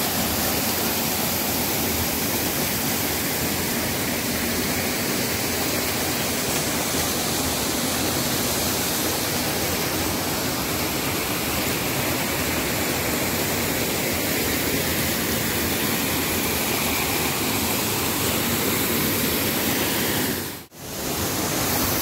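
Small waterfall cascading over boulders in a rocky stream: a steady, loud rush of water, which drops out for a moment near the end.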